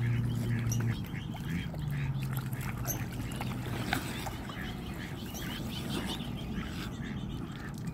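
Mute swans and their cygnets feeding at close range on the water. Two low, drawn-out calls come in the first few seconds, over small splashes and clicks of bills dabbling at the surface.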